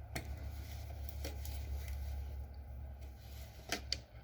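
A few light metallic clicks and knocks as a fitting on an unplugged Craftsman 109 lathe is loosened by hand, twice in quick succession near the end, over a steady low hum.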